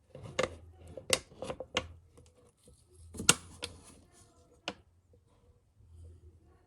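A string of sharp clicks and knocks from handling objects, about seven over five seconds, the loudest a little past three seconds in, then only a faint hum.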